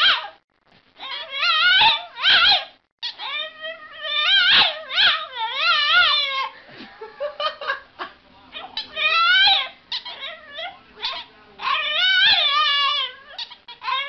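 A dog whining and howling in a run of long, wavering high-pitched calls, the pitch wobbling up and down within each call, with short breaks between them.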